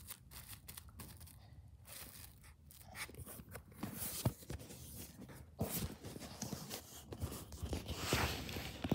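Plastic cling wrap crinkling and crackling as it is handled and folded around a lump of slime, in irregular rustles and crackles that grow busier about four seconds in.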